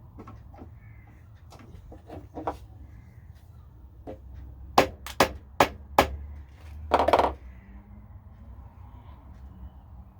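Hard knocks and taps from metal workshop parts being handled: a few light knocks, then four quick sharp taps about a third of a second apart and a short clatter, over a low steady hum.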